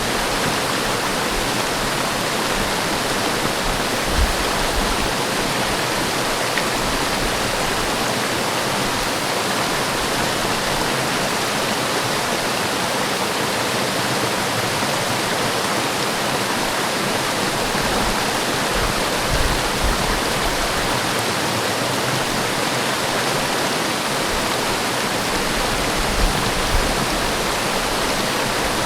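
Forest waterfall: water falling and splashing in a steady, even rush, with occasional low buffets of wind on the microphone.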